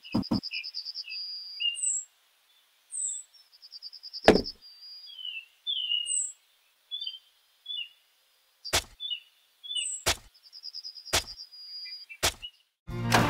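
Birds chirping and trilling steadily: short high falling chirps and a rapid buzzy trill repeated every few seconds. A couple of small hammer taps on a post right at the start, then a few single sharp knocks spread through the rest, and music comes in near the end.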